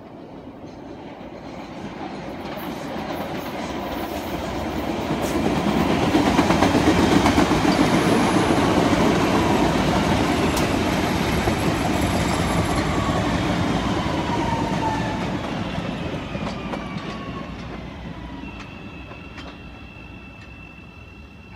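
CTA Red Line electric rapid-transit train passing on the elevated tracks. It grows louder as it approaches, is loudest about seven seconds in, and then fades as it pulls away. A falling whine is heard as it goes by, and a steady high tone comes in near the end.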